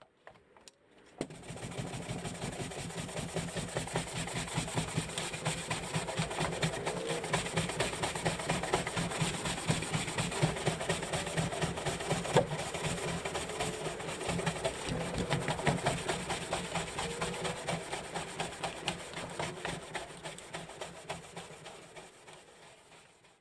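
Stiff-bristle deck scrub brush scrubbing weathered wooden deck boards in rapid back-and-forth strokes, working wood cleaner into the old finish. The scratchy scrubbing starts about a second in and tapers off near the end.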